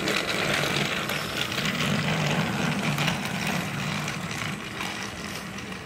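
Battery-powered Thomas & Friends TrackMaster Percy toy engine running along plastic track: its small electric motor and gears whir steadily, growing quieter toward the end.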